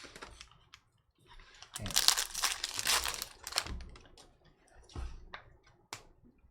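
A trading-card pack's plastic foil wrapper being ripped open and crinkled. The loud crackling rip starts about two seconds in and lasts about two seconds, followed by a few short, softer crinkles.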